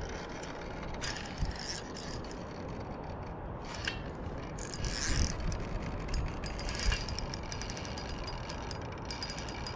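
Spinning reel being cranked in against a heavy fish on the line, its gears giving a fast, rapid ticking.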